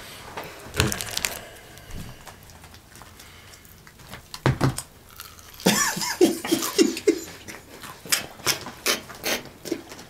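Eating sounds: bites and chewing of crispy fried chicken, with short sharp crunches and rustles, most of them in the last few seconds. A burst of laughter about six seconds in is the loudest sound.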